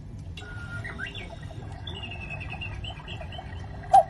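Recorded birdsong chirping from a quartz cuckoo clock's speaker, many short twittering notes, ending in a sharp click near the end as the cuckoo door snaps open.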